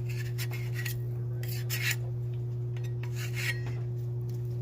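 Metal scraper scraping across the steel cooktop of a 22-inch Blackstone griddle to clean it, in a few rasping strokes about a second and a half apart. A steady low hum runs underneath.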